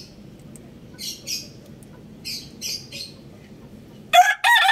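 A rooster starts crowing about four seconds in, a loud cock-a-doodle-doo that rises in pitch and breaks off briefly before it carries on. Before the crow there are two pairs of short, hissy scratching sounds over a low steady background noise.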